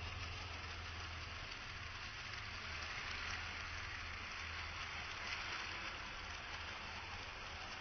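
Model train running along its track: a faint, steady whirring hiss over a low hum, swelling slightly midway as the train comes nearer.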